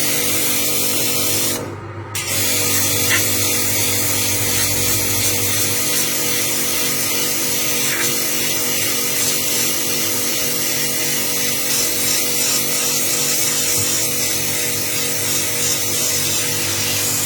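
A motor running steadily with a loud hiss, cutting out briefly about two seconds in and starting again.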